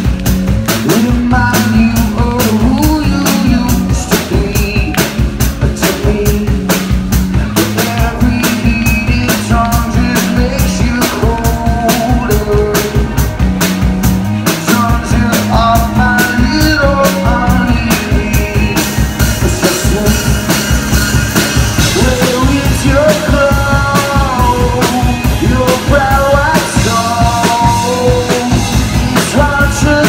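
Live rock band playing loudly: a drum kit keeping a steady beat under electric guitars and bass guitar, with a man singing into a microphone.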